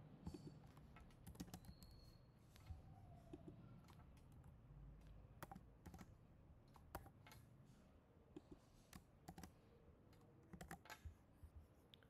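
Faint computer keyboard typing: irregular, sparse keystrokes as a text field is edited.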